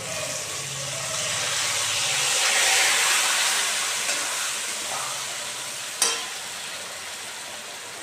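Marinated goat meat sizzling as it is tipped from a steel bowl into hot oil in a wok, the sizzle swelling to its loudest about three seconds in and then easing. One sharp metal clink about six seconds in.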